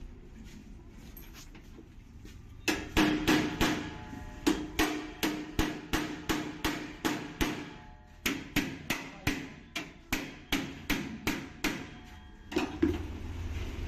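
Repeated hammer blows, about three a second, with a short pause about halfway through, struck while working on a washing machine's drum flange. A low steady hum comes in near the end.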